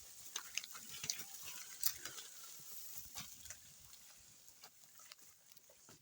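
Ox-drawn plough team at work: faint, irregular clicks and crunches of hooves, feet and the plough moving through the soil.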